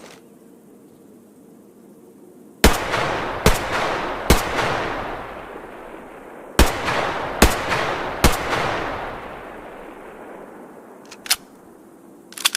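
H&K MP5 submachine gun firing single shots: two groups of three, each shot under a second apart, every one trailing a long echoing decay. A few short, sharp clicks follow near the end.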